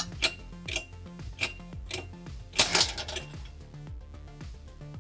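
Sharp metallic clicks about every half second as the test rig loads a 100%-infill PLA+ tensile test piece, then a louder crack about two and a half seconds in as the piece snaps at about 70 kg. Background music with a low, stepping bass runs underneath.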